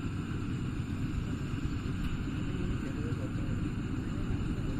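Rice combine harvester engine and threshing machinery running steadily under load.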